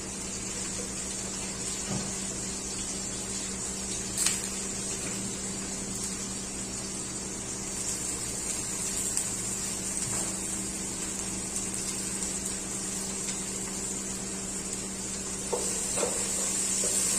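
Chopped onions sizzling steadily in hot mustard oil in a frying pan, over a constant low hum. There are a couple of light knocks and some utensil clicks near the end.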